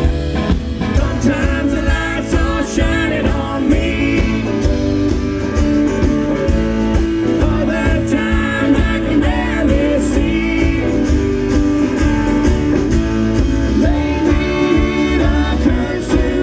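Live band performing a song: several acoustic guitars and an electric guitar strummed over a steady drum-kit beat, with a singer's voice carrying the melody.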